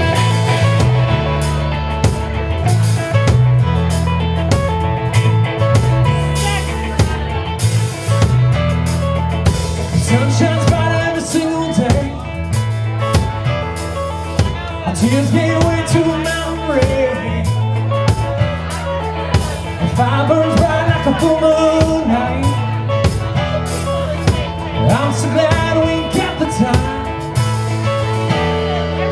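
Live rock band playing: drum kit, electric and acoustic guitars and bass guitar together in a full band mix.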